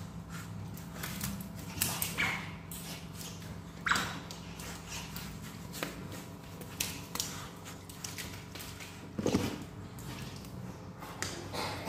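Asian small-clawed otters playing and wrestling over a person's lap: irregular scrabbling, rustling and fur-handling noises, with a few louder short bursts, over a low steady hum.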